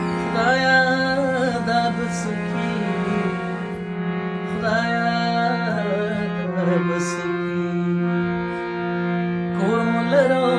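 Background music: a wavering, gliding melody over a steady low drone.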